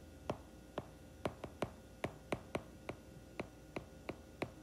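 Stylus tapping on a tablet's glass screen while handwriting, a quiet irregular run of short light clicks, about three a second.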